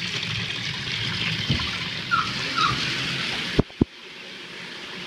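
Water running steadily in a toilet tank. Two sharp knocks come about three and a half seconds in, and after them the water drops to a quieter hiss.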